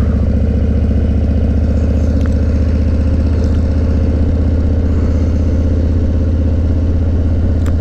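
Harley-Davidson Heritage motorcycle's V-twin engine running steadily at cruising speed.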